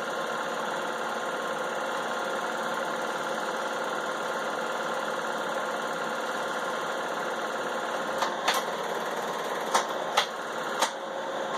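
Home-movie film projector running with a steady mechanical whir and hum. Several sharp clicks come in the last few seconds.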